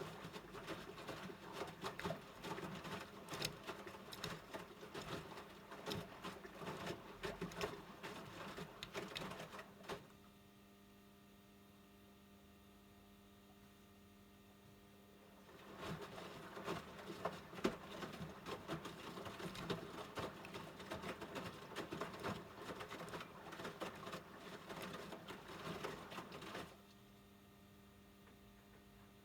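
AEG LS60840L front-loading washing machine drum tumbling a wet load: the wash load sloshes and patters for about ten seconds, stops, then tumbles again for about ten seconds about sixteen seconds in, and stops again near the end. This is the machine's typical turn-and-pause washing rhythm. A steady low hum carries through the pauses.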